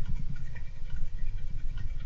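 A golden hamster moving about, making small scattered clicks and scratches, over the low, continuous rumble of a person snoring.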